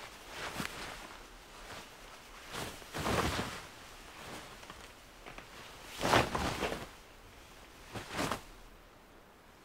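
Quiet rustling and swishing of a samurai's kimono and katana being handled, in four short separate bursts, the loudest about six seconds in.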